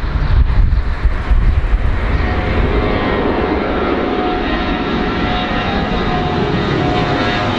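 Airplane engines running loud and steady, with high whining tones over the noise, after about two seconds of gusty low rumble.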